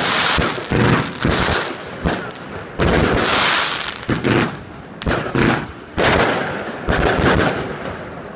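Royal Fireworks 238-shot cakebox firing: a rapid, uneven run of sharp bangs from shells launching and bursting, with one longer, noisier burst about three seconds in. The bangs thin out and fade near the end.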